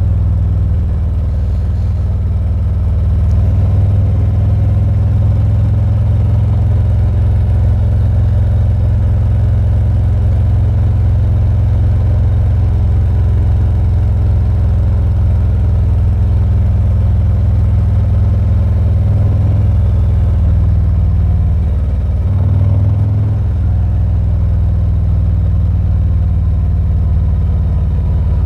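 2019 Harley-Davidson Ultra Limited V-twin engine running on the move, heard with heavy wind rumble on a small lapel mic inside a helmet with the visor open.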